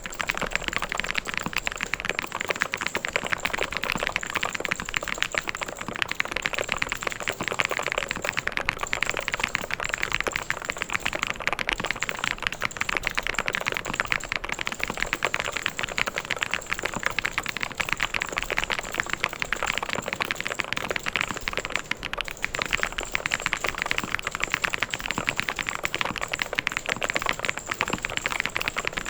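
Mechanical keyboard being typed on fast and without pause, a dense stream of key clicks and clacks.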